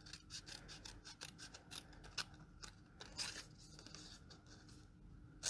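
Scissors snipping cardstock: a run of short, faint, irregular snips.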